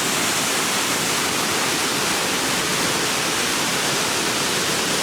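A steady, loud rush of a large volume of water pouring out of a dam.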